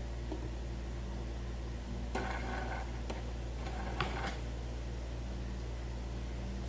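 Steady low hum of an electric fan running, with a few faint clicks and rustles from cloth being handled during sewing about two to four seconds in.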